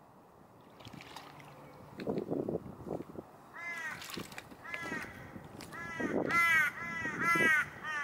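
A bird calling in a run of short, harsh calls, starting a few seconds in and loudest near the end. Low knocks and water noise come from a kayak being climbed into in shallow water.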